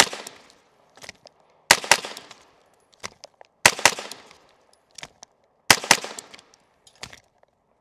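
AR-pattern carbine firing quick strings of two or three shots, a string about every two seconds, each followed by a short echo.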